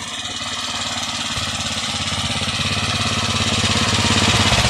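The single-cylinder petrol engine of a walk-behind power tiller running steadily with a rapid pulsing beat, growing louder throughout.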